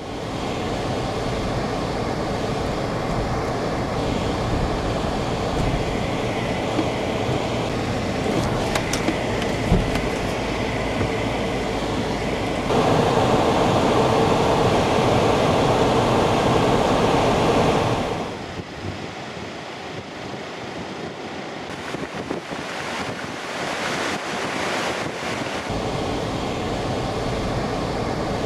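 A four-wheel drive driving on beach sand, heard from inside the cab: a steady rumble of engine and tyres with wind noise. It gets louder for about five seconds a little under halfway through, then settles back.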